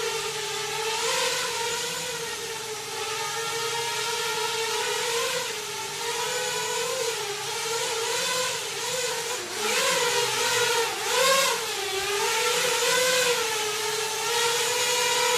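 A 7-inch FPV quadcopter's motors and propellers whining steadily, the pitch wavering up and down with the throttle and jumping up in a few quick surges about ten seconds in.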